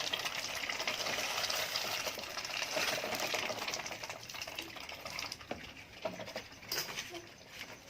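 Ducks dabbling with their bills in water or wet feed: a dense, rapid wet pattering that fades after about four seconds, with a few sharper clicks near the end.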